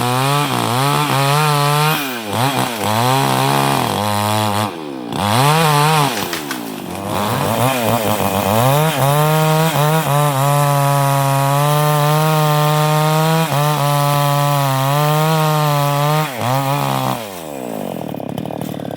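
New West 788 two-stroke chainsaw running at high revs while cutting teak, its pitch dipping and recovering again and again as the throttle eases or the chain takes load. Near the end the revs fall away and the saw runs lower and quieter.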